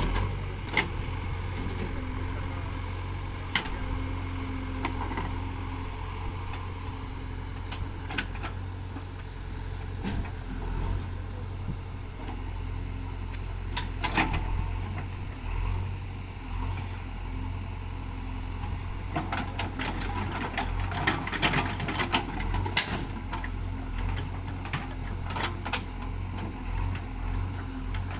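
Diesel engine of a JCB 3DX backhoe loader running steadily as it digs and loads mud, with scattered knocks and clanks that bunch together about two-thirds of the way through.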